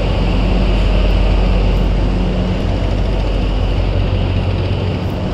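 Diesel engine of a river passenger launch running loudly and steadily during an engine test, a constant low drone with no change in speed.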